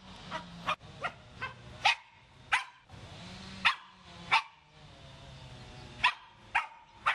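Spaniel yapping in play: about a dozen short, sharp, high-pitched yaps at uneven intervals, with a pause of over a second past the middle.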